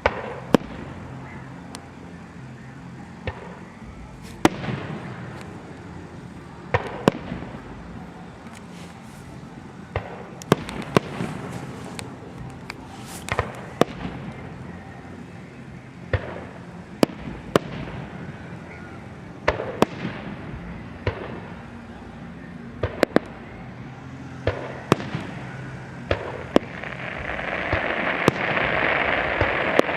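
Fireworks show: aerial shells bursting with sharp bangs every second or two, and a dense crackling hiss building near the end.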